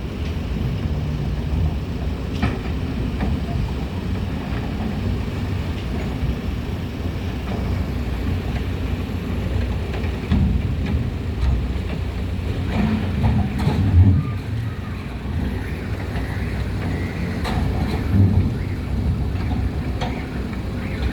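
Kobelco excavator's diesel engine running steadily under load, with scattered knocks and scrapes from its bucket as it digs slag out of a railway wagon; the loudest knocks come about two-thirds of the way through.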